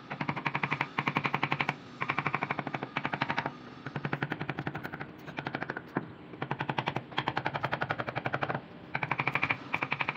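Mallet rapidly tapping a wood-carving chisel into a carved wooden panel, in quick runs of about ten light blows a second. Each run lasts a second or so, with short pauses between runs.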